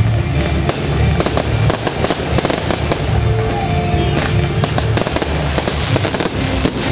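Fireworks crackling and banging in rapid succession, with show music playing underneath.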